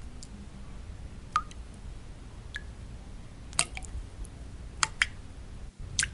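Water drops falling one at a time at irregular intervals, about seven sharp plinks, a few with a short ringing note, over a steady low white-noise rumble. The background cuts out for an instant just before the last drop.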